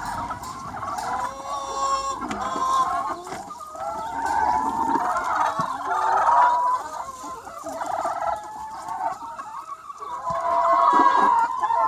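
A large free-range chicken flock clucking and calling, many hens' voices overlapping without pause, swelling louder and softer.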